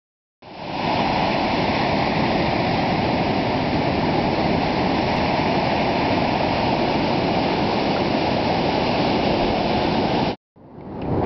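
Ocean surf breaking over a rocky shore, a steady rushing roar of white water. It starts about half a second in and cuts off abruptly near the end.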